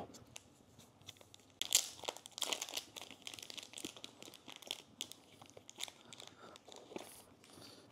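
Thin plastic protective wrapping crinkling and rustling as it is pulled off a new action camera by hand. The crackles are quick and irregular, starting about one and a half seconds in.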